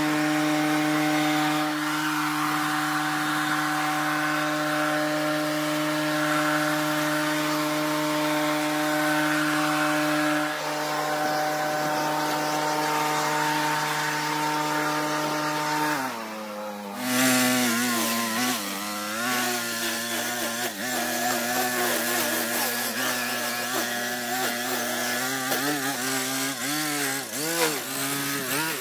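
Backpack leaf blower engine running steadily at a constant pitch. About two-thirds of the way through it gives way to a brush cutter engine, whose pitch rises and falls unevenly as it is throttled up and down.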